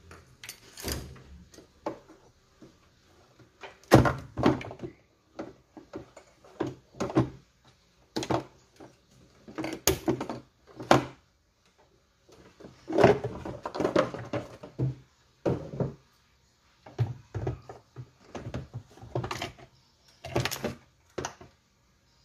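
Hands working on parts under a car's hood: a run of irregular knocks, clunks and clicks of plastic and metal parts being handled, loudest about 4, 10 and 13 seconds in.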